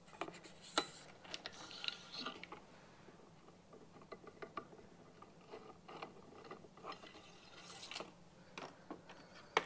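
Oiled bronze bore brush on a cleaning rod being run back and forth through a .22 rifle barrel: faint, irregular scraping and clicking of the rod and brush, with a sharper click near the end.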